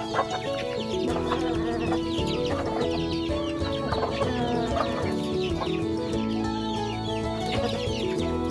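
A flock of chickens feeding, with chicks giving many quick, high, falling peeps and hens clucking, over steady background music.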